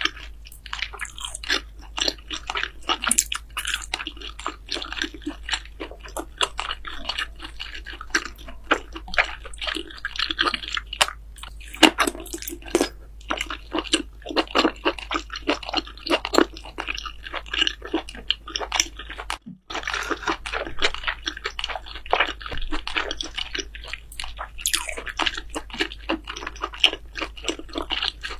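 Close-miked eating: loud chewing and crunching of food, a dense run of sharp crackles, broken by a brief silent gap about two-thirds of the way through.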